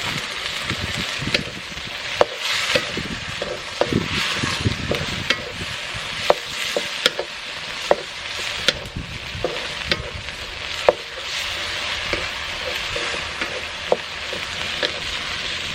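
Long beans sizzling as they are stir-fried in a pan, with a utensil clicking and scraping against the pan about once a second as they are stirred.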